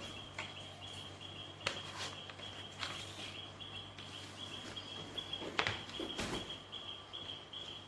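A cricket chirping steadily in short, rapid pulses, with a few sharp clicks and rustles of handling scattered through.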